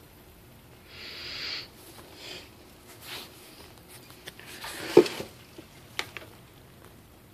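Close, breathy puffs of air into the microphone, a few short breaths in a row with the longest about a second in. About five seconds in comes a sharp knock, the loudest sound, and a lighter click follows a second later.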